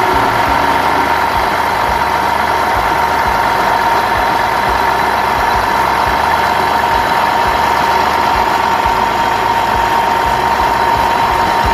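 A steady engine-like running sound with a constant high whine, holding an even level throughout.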